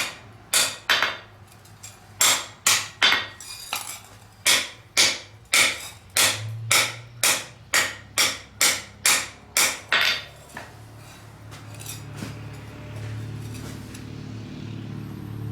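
Blacksmith's hammer striking hot mild steel on the anvil, about twenty ringing blows at roughly two a second, while the garden shovel is forged from one piece of square stock. The hammering stops about ten seconds in, leaving a steady low hum.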